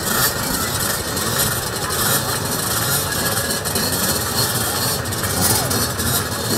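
A row of children's two-stroke motocross minibikes running together at idle on the start line, a steady massed engine din with small revs rising here and there.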